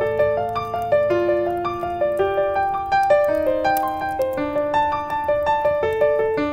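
Solo piano music: a steady run of single notes, about three to four a second, over held lower notes, with a fresh chord struck at the very end.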